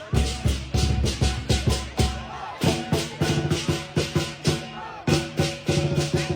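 Lion dance percussion: the big lion drum beating with clashing cymbals in a fast, steady rhythm, a ringing pitched tone joining in about halfway through.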